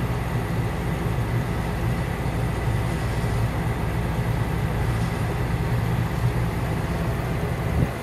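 Truck engine running steadily, heard from inside the cab: an even, low drone.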